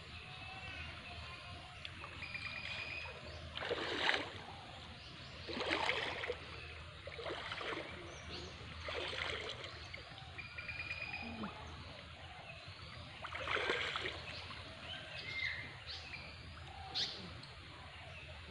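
Water splashing and sloshing in about seven separate bursts as a person wades through shallow pond water, with faint bird chirps between them.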